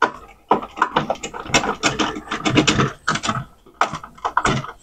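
Irregular clicks, taps and rattles of plastic and metal parts being handled by hand inside an opened Sony CDP-CX355 CD changer, as cables and parts are fitted back in place.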